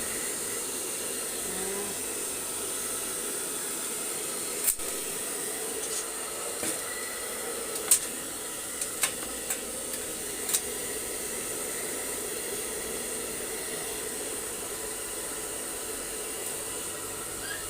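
Blow dryer running steadily, a continuous airy hiss as it dries a husky's wet coat after a bath. A few short sharp clicks come between about five and eleven seconds in.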